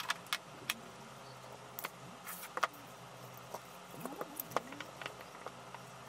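Scattered light clicks and ticks of hands working a hardboard crossover board and its stiff component wire leads, with a short scrape-and-creak cluster about four seconds in.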